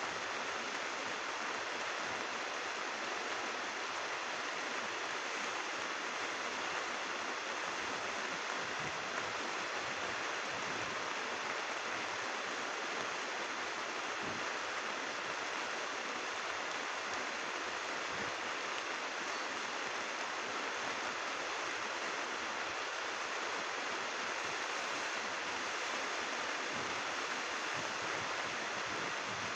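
Steady rain falling, an even hiss of raindrops.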